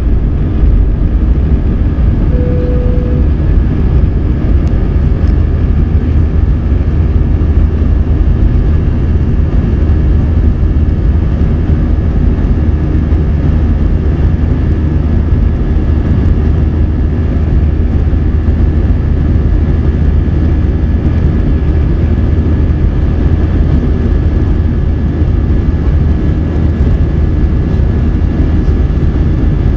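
Airbus A321 jet engines heard inside the cabin during the initial climb after takeoff: a loud, steady rumble with a thin, steady high whine over it. A short single tone sounds once, about two and a half seconds in.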